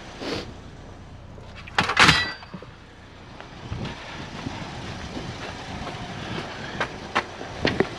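A loud metallic clang from scrap metal being handled about two seconds in, ringing briefly, then a few lighter knocks near the end.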